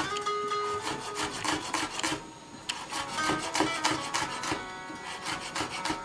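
Chef's knife finely chopping shallots on a wooden chopping board: quick, regular blade strikes on the wood, with a short pause about two seconds in.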